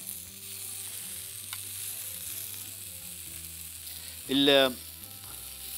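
Onion quarters and cherry tomatoes sizzling steadily on a hot ribbed grill pan as they are turned with tongs. A short vocal sound from the cook about four seconds in.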